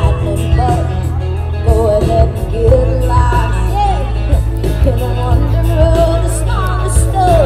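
Live amplified rock-pop band: a woman singing into a microphone over electric guitars, drums and keyboard, with a heavy bass line.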